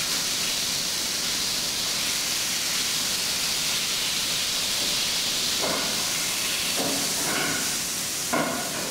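Chicken breast sizzling in hot olive oil in a frying pan: a steady frying hiss, with a few short knocks from the utensil in the pan near the end.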